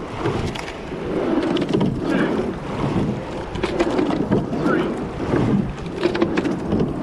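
Rowing eight under way at racing pressure: oar blades catching and driving through the water and water rushing past the hull, the sound swelling and easing with each stroke. Sharp clunks from the oars in their gates recur with the stroke.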